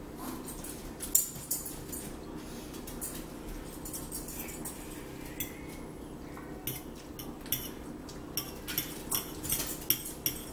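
Metal forks clicking and scraping against dinner plates while people eat, scattered clicks that come more often in the second half, with one louder clink about a second in. A low steady hum runs underneath.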